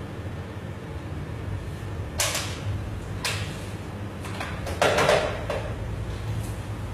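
A few sudden bumps and knocks, the loudest and longest about five seconds in, over a steady low hum.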